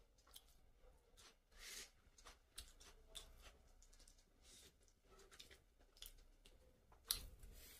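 Faint eating sounds: chewing and wet mouth clicks, with fingers tearing at fried chicken on a plate. Scattered small clicks and short crackles, with a sharper click near the end.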